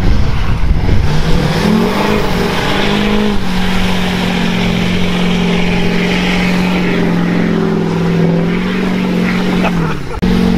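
Duramax diesel pickup revving hard, then held at high revs while its bald tires spin in mud, flinging mud clear; the truck is stuck. The revs climb in the first few seconds, stay steady, and drop near the end.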